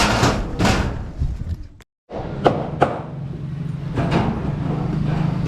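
Several sharp metallic knocks and bangs of hand work, three in quick succession after a short break, with a steady low hum setting in near the end.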